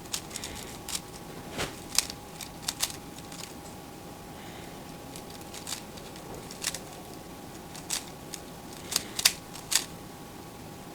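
A loose plastic Rubik's cube having its layers turned by hand during a speed solve: irregular sharp clicks and clacks with short pauses between them, the loudest around two seconds in and again near the end. The cube is loose enough that pieces shift when a layer turns.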